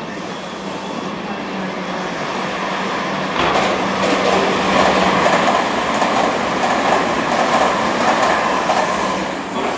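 Tobu N100 series Spacia X electric train running along the tracks through the station: steady wheel-on-rail noise that grows louder about three and a half seconds in as it comes past, with a steady low hum underneath.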